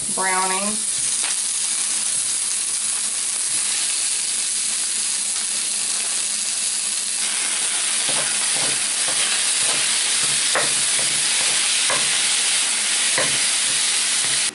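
Ground meat sizzling loudly in a hot cast-iron skillet, the sizzle starting suddenly as the meat goes into the pan and holding steady while it browns. From about halfway on, a wooden spatula breaks up and stirs the meat, adding short scrapes and knocks against the pan.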